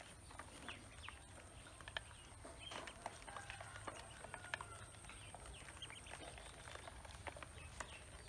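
Ducklings faintly peeping and pecking grain in a plastic basin, with many quick sharp ticks of beaks against the plastic.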